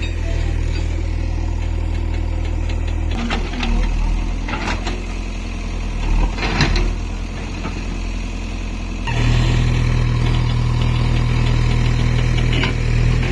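Heavy diesel engine running steadily, with several knocks and clatters between about three and seven seconds in. About nine seconds in the engine note steps up and gets louder.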